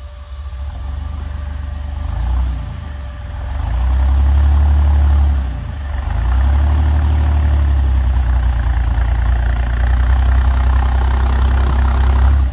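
Snowcat engine working under load while it pulls a stuck pickup out on a tow strap. It revs up and down a couple of times in the first six seconds, dips briefly, then holds a steady, heavy drone.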